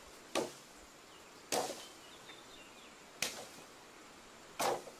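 A hand tool chopping into the ground and brush four times, about one sharp strike every second and a half, as a rat burrow is dug out.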